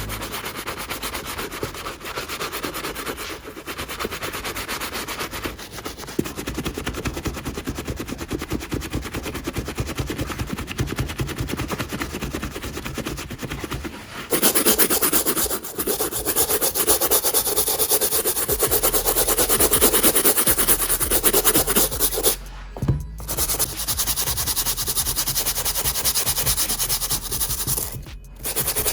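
A brush scrubbing a sneaker with shoe cleaner in rapid back-and-forth strokes. It gets louder and brighter about halfway through, with two brief breaks near the end.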